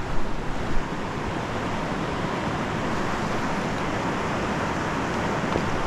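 Steady rushing of a mountain stream's flowing water, with a few soft knocks in the first second.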